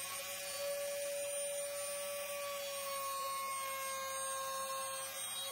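Table-mounted router with a quarter-inch round-over bit, switched on and running up to speed, then holding a steady high whine along with the rush of air through its dust extraction.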